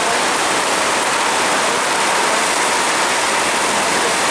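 Steady rain falling, a loud even hiss with no breaks.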